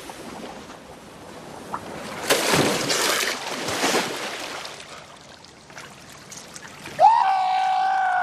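Water splashing and sloshing as a man wades and swims, with louder splashes about two to four seconds in. About seven seconds in, a loud cry held at one high pitch for about a second and a half cuts in; it is the loudest sound.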